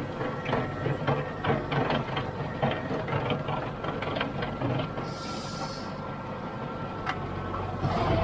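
John Deere farm tractor's diesel engine running under field work, with a rapid, uneven clatter of knocks over the first few seconds. A short hiss comes about five seconds in.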